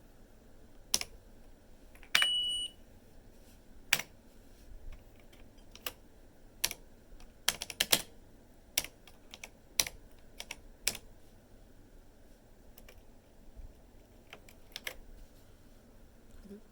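Keys of a Canon Typestar 3 portable electric typewriter being pressed one at a time, giving irregular single clicks with pauses between them. A short electronic beep sounds about two seconds in.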